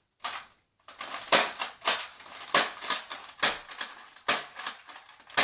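Sharp plastic clicks and clacks from handling a Nerf toy blaster and its magazine, a dozen or more irregular strikes, a few each second.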